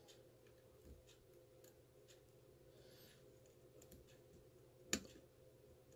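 Faint ticks of a steel hook pick working the pins of a Yale-keyway pin tumbler lock cylinder under tension, with one sharper click about five seconds in as a pin sets.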